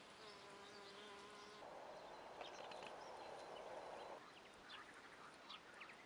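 Faint buzzing of a honeybee in flight: a steady hum for about a second and a half, then a rougher, louder buzz for a few seconds that stops about four seconds in.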